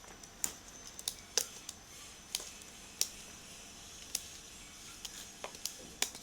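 Scattered light clicks and taps, about a dozen at uneven intervals, as a combination-lock pencil case is handled and opened.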